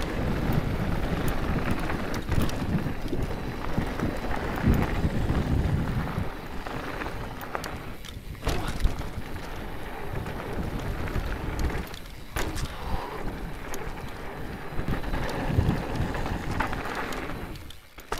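Wind buffeting an action camera's microphone as a mountain bike rolls fast down a gravel trail, with tyre noise on loose gravel and scattered clicks and rattles from the bike.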